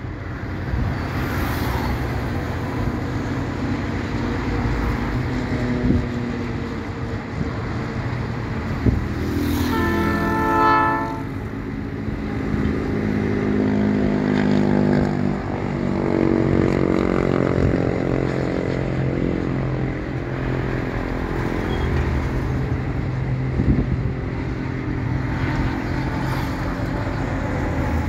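Highway traffic, with trucks and cars passing and a steady engine drone. A horn sounds once for about a second and a half, about ten seconds in.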